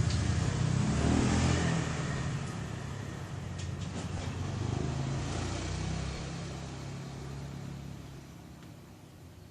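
A motor engine running, starting suddenly and loud, then fading away steadily over the next several seconds.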